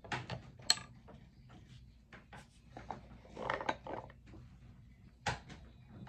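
Wooden toy tool-kit pieces (Melissa & Doug Take-Along Tool Kit blocks, pegs and screwdriver) clicking and knocking together as they are handled. Irregular light taps, the sharpest one under a second in and a small flurry around the middle.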